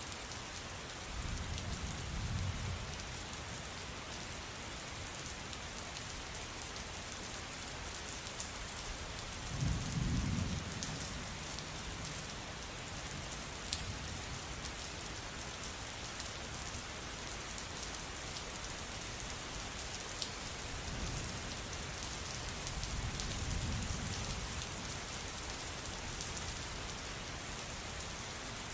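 Steady rain falling, with scattered drip ticks, and low rolls of distant thunder three times: about a second in, about ten seconds in (the loudest), and again from about twenty-one to twenty-four seconds.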